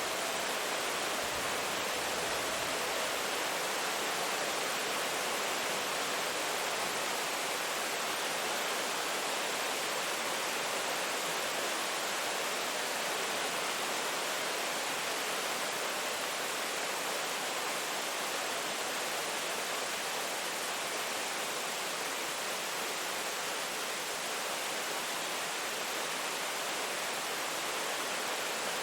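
Steady rain falling, a dense, even hiss with no separate drops or changes.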